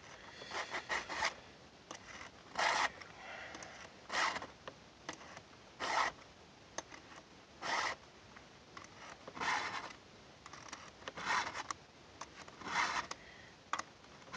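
Round chainsaw file in a file-guide holder being pushed across a saw chain's cutter teeth, each forward stroke a short rasp, about eight strokes spaced a second and a half to two seconds apart.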